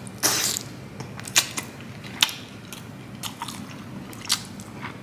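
A person biting and chewing a large prawn close to the microphone: a string of irregular, sharp wet mouth clicks and small crunches.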